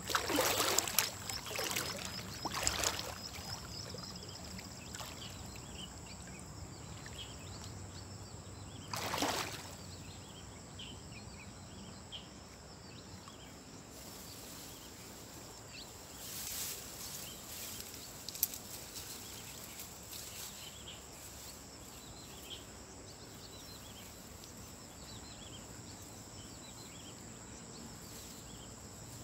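Water splashing and sloshing in short bursts as a person wades into a shallow river, loudest in the first few seconds and again about nine seconds in, with a faint steady high-pitched insect drone behind.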